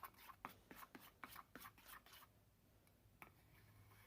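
Faint scraping and tapping of a utensil stirring a thick glue-based slime mixture in a container: a run of quick, irregular strokes, then quieter after about two seconds with one more tap near the end.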